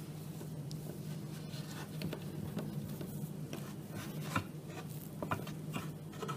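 Hands rolling a sheet of soft dough into a log on a wooden board: faint rubbing and a few light taps, over a steady low hum.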